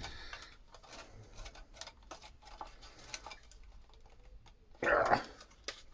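Small clicks, taps and scrapes of metal and plastic parts as a battery charger's casing is worked and pulled apart by hand, with a louder half-second rasp about five seconds in.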